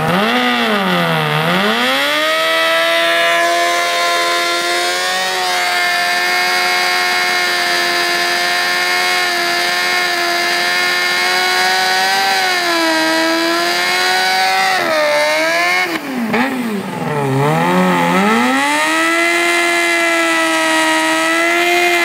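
Suzuki GSX-R sport bike's inline-four engine held at high revs through an aftermarket slip-on exhaust during a stationary burnout, the rear tyre spinning and smoking. The revs sag and climb back a few times, most deeply a little past the middle.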